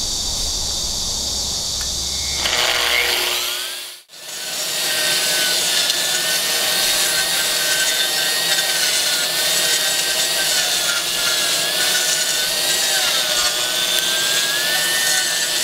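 A 2200 W, 125 mm AGP SM5 concrete grinder running and grinding, a steady abrasive noise with a motor whine whose pitch wavers slightly. The sound drops out briefly about four seconds in, then runs on steadily.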